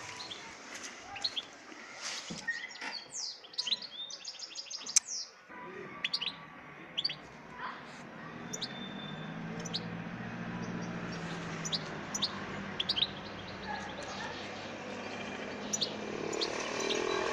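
Caged European goldfinches chirping and twittering: short high calls, a quick run of notes about four seconds in, then scattered chirps.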